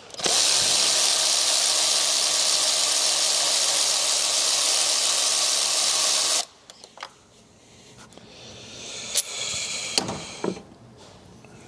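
A cordless power tool runs steadily for about six seconds, backing out the spark plug of the misfiring cylinder, then cuts off suddenly. A few light clicks and a faint rising whirr follow near the end.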